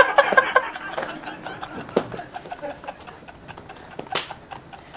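Laughter dying away in the first half-second, then quiet, stifled laughing with scattered soft clicks and taps, and one short sharp noise about four seconds in.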